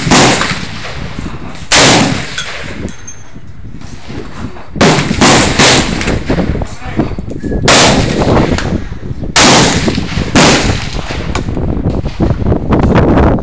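.308 semi-automatic rifle firing about seven single shots at irregular intervals of one to three seconds, each a sharp report with a short echo trailing off.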